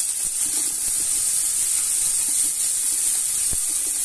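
Onions sautéing in hot cooking oil: a steady hissing sizzle as they turn golden brown, with a faint knock near the end.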